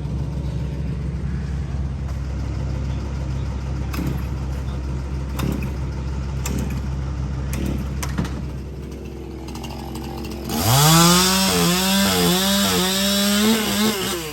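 A chainsaw revs up sharply about ten seconds in and cuts at full speed for a few seconds, then drops off near the end. Before it, a low engine drone runs steadily with a few sharp knocks.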